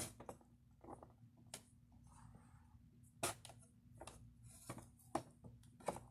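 Small plastic doll parts clicking and tapping as they are handled and fitted together, about a dozen irregular sharp clicks, with a brief soft rustle about two seconds in.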